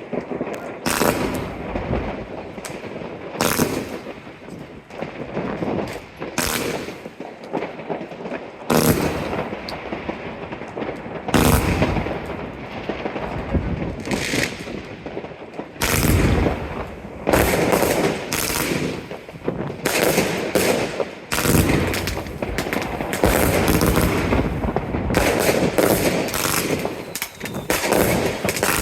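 An 85-shot compound consumer firework cake (20 and 25 mm tubes) firing in rapid succession, a steady run of sharp launch and burst reports in clusters with brief lulls. The shots come denser and louder through the second half.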